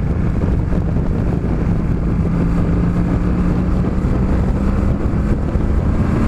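Motorcycle engine running at a steady speed on the road, with wind noise on the microphone.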